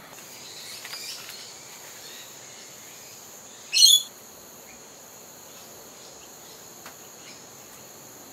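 Insects making a steady high-pitched drone, with one short high chirp about four seconds in that is the loudest sound here, and faint rustles near the start.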